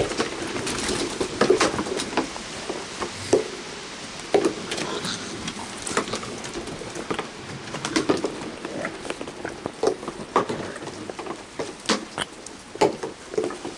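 Several raccoons close by making low, cooing churr calls over and over, mixed with many short sharp clicks and knocks.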